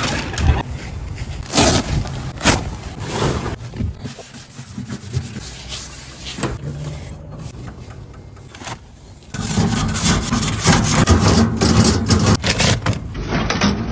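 A few handling clicks and knocks in the first seconds, then from about nine seconds in a grill brush scrubbing the metal cooking grate of a charcoal grill in fast, continuous scraping strokes, the loudest sound here.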